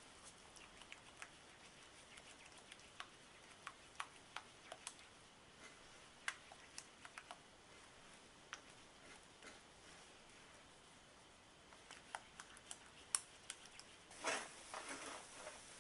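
Silicone spatula stirring and scraping thick chestnut paste around a nonstick frying pan: faint, scattered soft clicks and squelches, with a louder stretch of scraping near the end.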